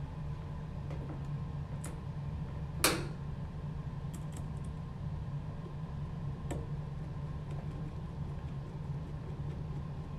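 A few small metal clicks, one sharper tap about three seconds in, as a screw is set into a metal enclosure and turned in with a Phillips screwdriver. A steady low hum runs underneath.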